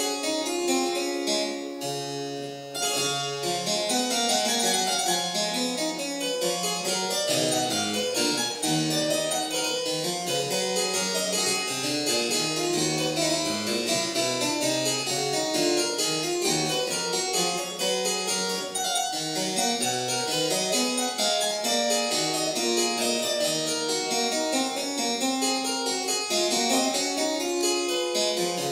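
Harpsichord being played solo: a continuous piece with a moving bass line under a busy stream of treble notes.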